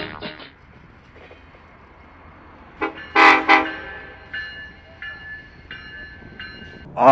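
Train horn sounding: two loud short blasts about three seconds in, then four shorter, fainter toots. A loud pitched sound falls sharply at the very end.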